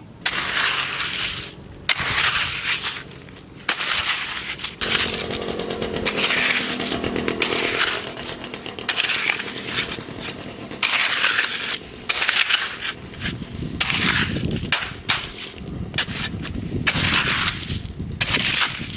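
Wet concrete mix with stones being scraped and spread over rebar in a road pothole, in repeated rough, gritty strokes.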